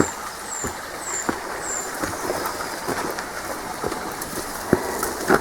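Footsteps and rustling of someone scrambling up a steep, overgrown bank, a few separate steps or knocks through it. A small bird repeats a short high falling note in the first couple of seconds.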